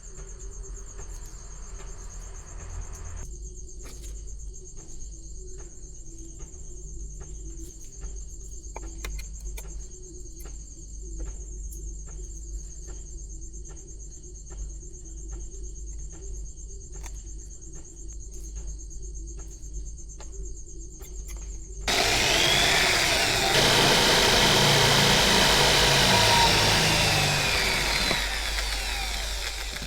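Steady machine hum with faint regular clicks about twice a second, then a power tool starts up loud at about 22 seconds and runs for about seven seconds, its pitch sweeping up and down, before stopping just before the end.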